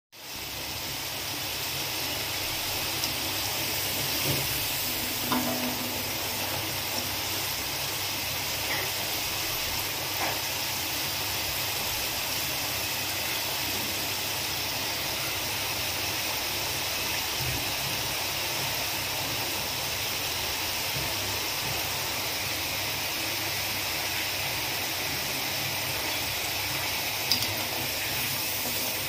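Potato sticks deep-frying in hot oil, a steady sizzle with a few faint clicks.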